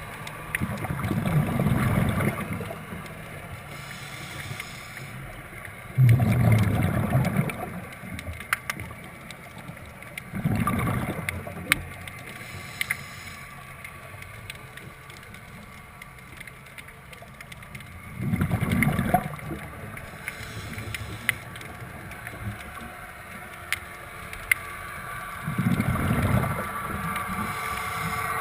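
Scuba diver's exhaled bubbles rushing out of the regulator five times, several seconds apart, in a steady breathing rhythm, with scattered sharp faint clicks in the water between breaths.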